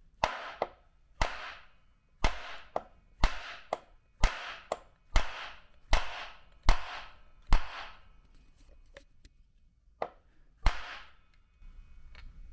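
Hammer-type impact bullet puller struck repeatedly against a plywood board, about one hard knock a second for some eight seconds, then a pause and one more knock, each trailing off briefly. The blows are knocking the bullet loose from a .40 S&W cartridge held in the puller's jaws.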